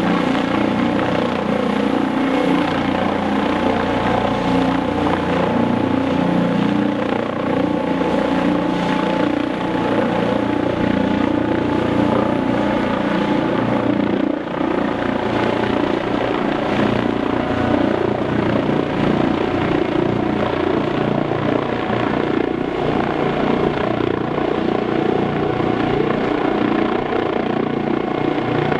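Eurocopter EC155 twin-turbine helicopter running steadily and loud, rotor noise with a thin steady whine above it.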